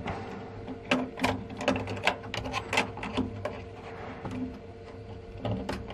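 Irregular run of sharp metal clicks and ticks from an LGA2011 CPU socket's retention levers and plate being handled, over the steady hum of the workstation's running fans.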